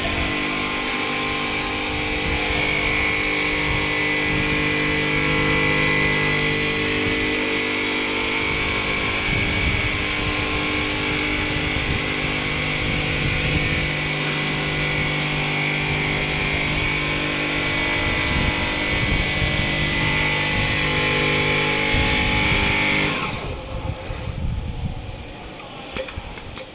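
Richpeace single-needle frame-type quilting machine running as its sewing head stitches across the quilt: a steady mechanical hum with a high whine. Near the end the running sound drops away sharply.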